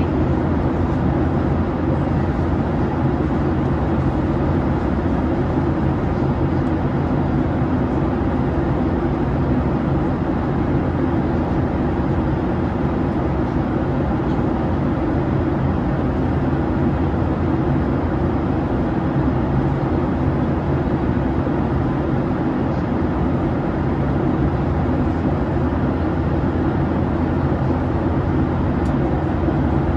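Steady noise of a Boeing 737-800's CFM56-7B engines and rushing air, heard inside the passenger cabin. It is a constant low drone and hiss, without change.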